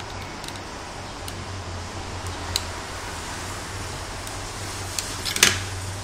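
Wire cutters working on the laptop charger cable's wires, giving a few small sharp clicks, then a louder short clatter just before the end as the cutters are put down on the workbench. A steady low hum runs underneath.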